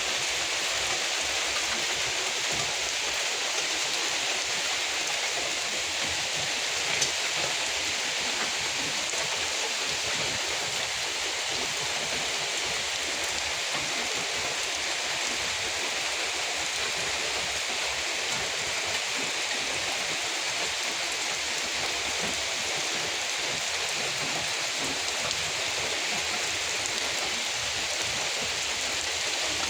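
Steady rainfall, an even unbroken hiss, with one sharper tap about seven seconds in.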